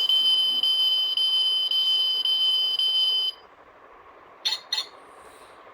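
Sound chip in a 1:32 die-cast toy car giving a steady, high electronic beep that cuts off suddenly about three seconds in, triggered by opening the car's door. Two sharp clicks follow shortly after.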